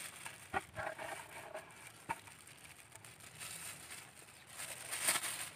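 Quiet outdoor ambience with a faint steady high hiss and a few soft ticks and patters, about half a second, two seconds and five seconds in.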